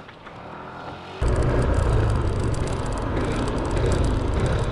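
Motor scooter riding along a road: engine running under loud wind buffeting on the microphone, cutting in abruptly about a second in. Before it, a faint low engine hum.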